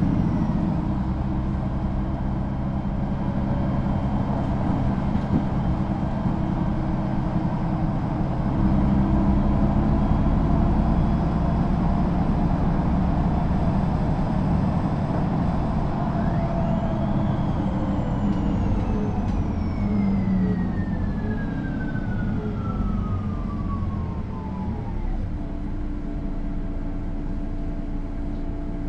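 Mercedes-Benz O530 G II articulated city bus idling, its engine running steadily. About halfway through, a whine rises sharply and then falls slowly over some nine seconds.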